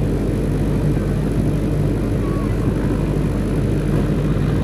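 Helicopter coming in to land, its rotor and engines making a steady low drone.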